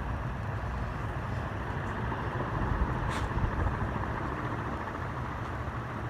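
Antique Westinghouse Baby Sidewinder ceiling fan running steadily: motor hum with the rush of air from the blades, and a faint click about halfway. The owner thinks its bearing could use a little TLC.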